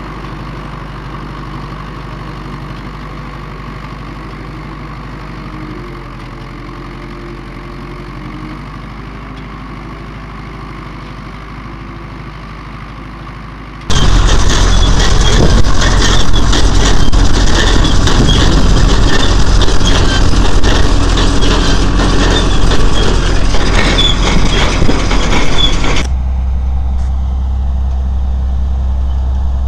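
Tractor engines running in a field, cut together. First a yellow Ursus tractor runs steadily under load. At a cut about 14 seconds in the sound jumps much louder, with a yellow Ursus passing close. About 26 seconds in it drops back to a lower steady sound: a Massey Ferguson tractor working with a Grimme potato harvester.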